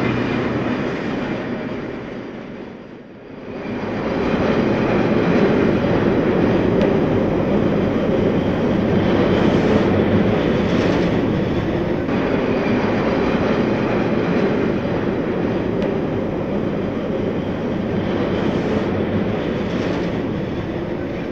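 RhB G 4/5 2-8-0 steam locomotive moving with its train: a steady, loud running rumble and rail noise. The sound dips briefly about three seconds in, then comes back.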